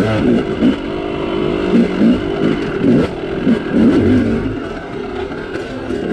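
Yamaha YZ250 two-stroke dirt bike engine revving up and down on the throttle while riding, the pitch rising and falling several times and easing off near the end.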